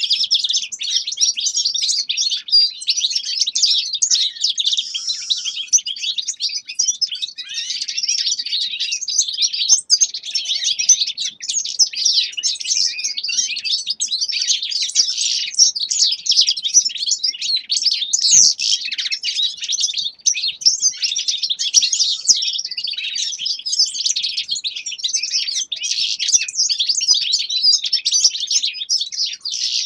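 A group of small finches singing and twittering together: a dense, continuous high chatter of many overlapping songs, trills and chirps, with no pause.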